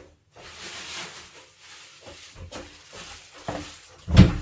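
Rustling and handling noises with scattered light knocks, then a heavier thump near the end.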